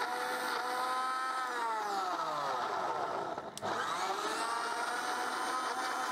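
Sujata Frootmix mixer grinder blending chunks of papaya, banana and curd into a smoothie: a steady motor whine that sags lower in pitch, dips with a click about three and a half seconds in, then spins back up to speed.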